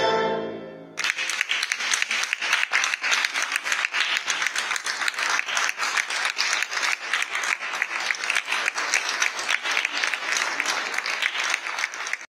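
A final chord from piano and violin dies away, then an audience applauds with steady, dense clapping from about a second in, cut off abruptly near the end.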